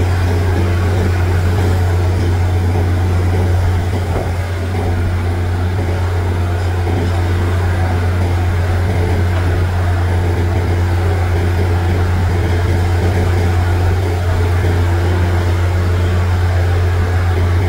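Borewell drilling rig and its air compressor running steadily: a loud, low, constant hum that dips briefly about four seconds in.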